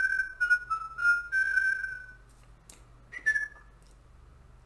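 A short whistled tune: a run of clear, stepped notes for about two seconds, then one more brief rising note about three seconds in.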